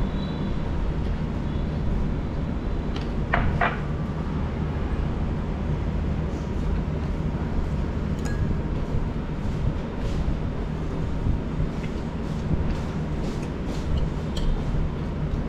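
Steady low hum of a restaurant dining room, with scattered light clicks and a brief clink a little over three seconds in.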